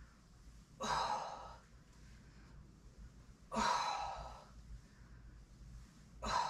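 A woman's exertion breathing: three hard breaths out, each starting suddenly and fading over under a second, about every two and a half seconds as she works a core exercise.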